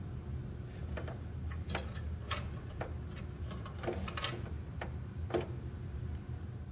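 Short plastic clicks and taps, about eight of them at uneven intervals, as a hand handles the tray 2 paper feed roller inside a Konica Minolta bizhub C308 copier, over a steady low hum.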